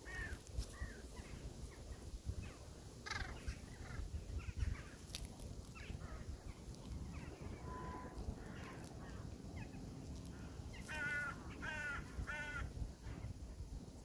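Crows cawing: scattered calls, then three loud caws in quick succession about three-quarters of the way through, over a steady low rumble.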